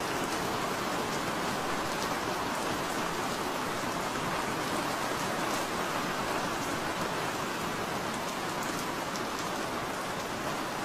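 Steady rain, a dense even hiss with faint scattered drop ticks, cutting in abruptly out of silence at the start.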